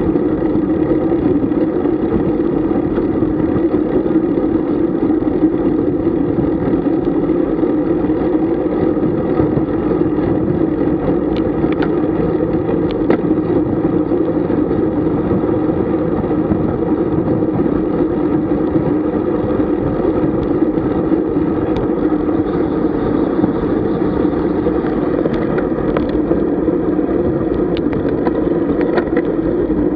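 Steady rushing noise of a road bike ride: wind on the microphone and tyres on the road, with a few faint clicks.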